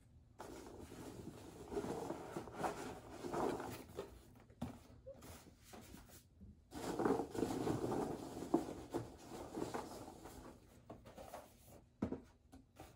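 Cardboard rustling and scraping as small product boxes are handled and lifted out of a cardboard shipping carton. The sound cuts out completely for a moment about six seconds in.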